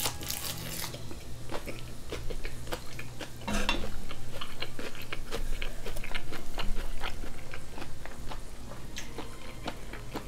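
Chewing, then a spoon scraping and clinking inside a stainless steel canister as rice is scooped out, with many small utensil clicks and knocks.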